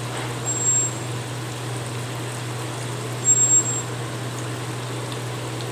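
Balls of idli batter deep-frying in hot oil: a steady sizzle and bubbling over a constant low hum. A brief high whine comes twice, with a slight rise in loudness each time.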